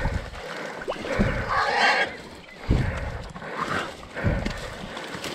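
Hog dogs and a caught wild boar hog scuffling in thick brush: rough animal noises in short bursts, with low thumps of movement every second or two.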